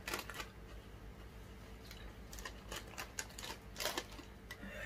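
A chip packet crinkling and chips being crunched: a run of short, sharp crackly clicks at uneven intervals, thickest around the middle to late part, over a faint steady hum.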